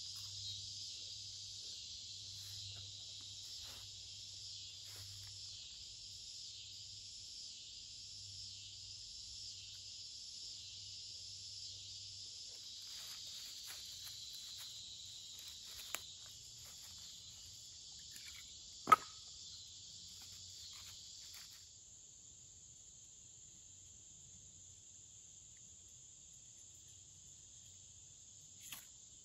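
Steady chorus of insects chirring in summer woods, which drops off suddenly about two-thirds of the way through. Just before the drop comes one sharp snap, with a couple of faint clicks elsewhere.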